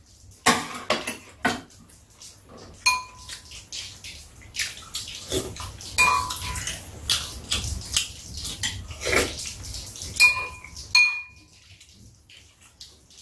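Metal chopsticks and spoons clicking and scraping against bowls and a metal serving tray as two people eat, with several brief ringing clinks.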